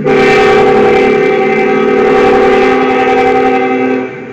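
Union Pacific freight locomotive's air horn sounding one long, loud chord of several notes at a grade crossing, held about four seconds and cutting off near the end.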